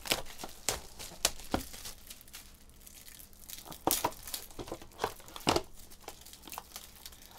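Clear plastic shrink wrap being torn and crinkled off a cardboard trading-card box, with scattered crackles and clicks as the box is handled and opened.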